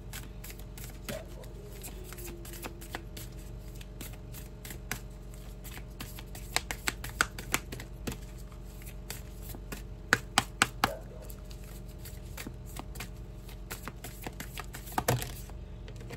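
Tarot cards being shuffled and handled: a run of quick, sharp card flicks and taps, bunched in clusters about six to seven seconds in and again around ten to eleven seconds, with a louder snap near the end.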